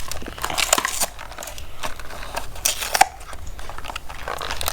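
Plastic toy packaging being crinkled and torn open by hand: an irregular run of crackles and crunches.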